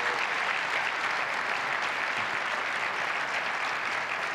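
Keynote audience applauding steadily: dense, even clapping from a large crowd.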